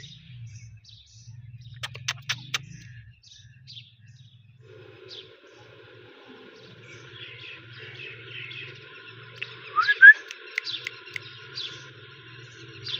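Ringneck parrot chirping: scattered short calls, the loudest a pair of quick rising chirps about ten seconds in. A few sharp clicks come about two seconds in, and a steady faint hum lies underneath.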